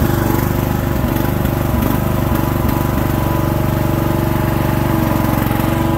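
Sears Craftsman riding mower's 15 hp single-cylinder Briggs & Stratton engine running steadily, freshly started, with an even rapid firing pulse.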